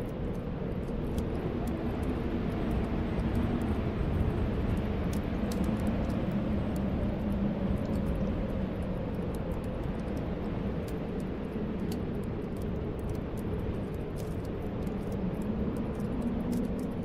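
Snowstorm wind blowing steadily with a low, moaning whistle that swells and eases slowly, over faint crackling of a wood fire in a fireplace.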